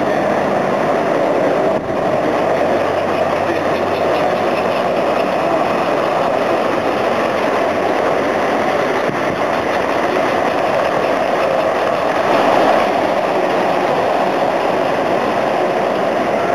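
S gauge model trains running on the layout: a steady, loud hum and rumble of the locomotive motors and wheels rolling over the track.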